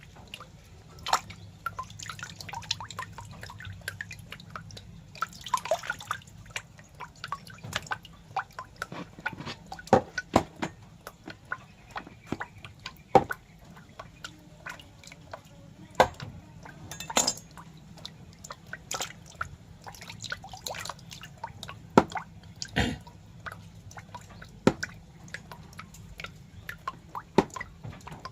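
Irregular wet clicks and drips, some sharper and louder than others, over a faint steady low hum.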